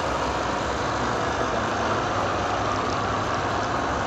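Computerized gantry quilting machine running steadily, its needle head stitching through a filled quilt.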